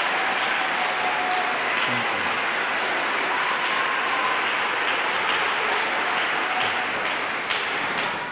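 Large audience applauding steadily, a dense clapping ovation with a few voices calling out in it; it begins to thin near the end.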